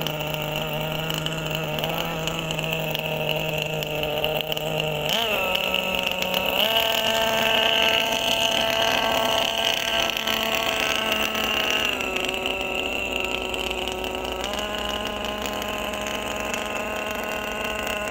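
Radio-controlled model barge's Zenoah two-stroke petrol engine running steadily on the water. Its pitch rises as the throttle opens about five seconds in and climbs again about seven seconds in, drops back about twelve seconds in, and steps up once more near fifteen seconds.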